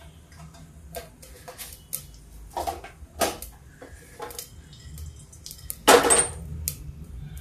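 Steel kitchen utensils clinking and tapping: a few light knocks, then a louder metallic clank with a brief ring about six seconds in as the steel pressure cooker is shifted on the gas stove's grate. A low steady hum runs underneath.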